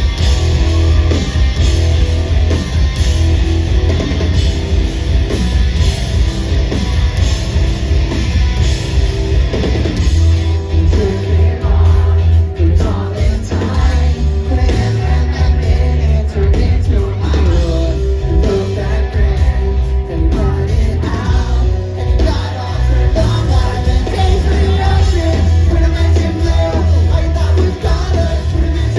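Live rock band playing loudly, with distorted guitars, bass and drums, and a singer's vocals over them.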